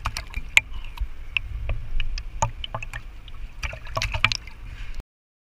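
Pool water splashing and sloshing against a camera held at the waterline, with many sharp knocks and drips over a low rumble. The sound cuts off suddenly about five seconds in.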